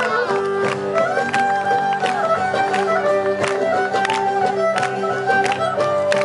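Cypriot traditional folk music played live, a violin carrying the melody over steady held low tones, with sharp beats keeping time.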